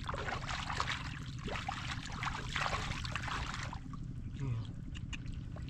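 Shallow muddy water sloshing and splashing irregularly as hands grope and scoop through it to catch fish.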